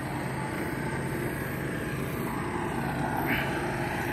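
Small longtail boat engine running steadily, an even low drone with no change in speed.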